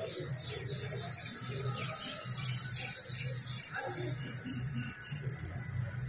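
Cicadas singing in the tree canopy: a continuous, high-pitched buzz with a fast, even pulse, steady throughout.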